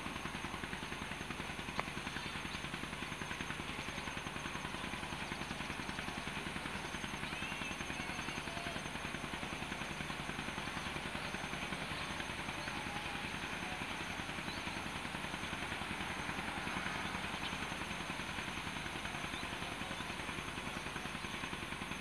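A small engine running steadily at an even idle with a fast regular pulse, with a few faint bird chirps over it.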